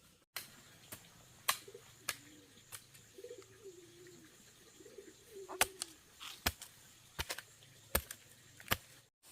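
A bird cooing in low, wavering phrases, with about eight sharp knocks scattered through it.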